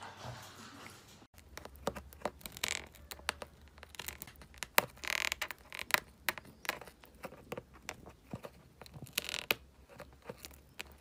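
A kitten's mouth noises close to the microphone: a run of small irregular clicks and smacks, with a few short breathy rasps a few seconds apart.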